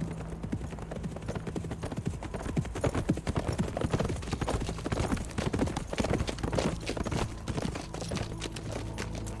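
Horse hoofbeats, many quick clattering strikes, over a low sustained music drone.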